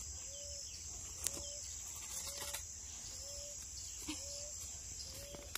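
Quiet rural ambience: a steady high drone of insects, a short low call repeated about once a second, and two sharp clicks as dry branches are handled.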